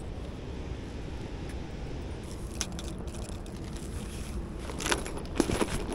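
A steady low rumble of wind on the microphone, with scattered crunching and scraping clicks from about halfway that get louder and more frequent near the end.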